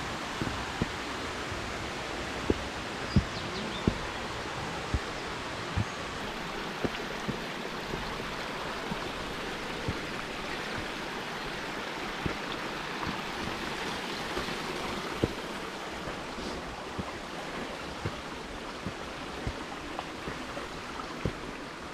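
A mountain stream rushing steadily, with footsteps on a stony dirt trail landing about once a second over it.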